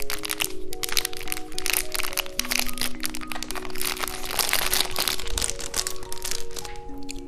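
Background music with a slow melody of held notes over a dense run of crackling and crunching clicks, which thin out near the end.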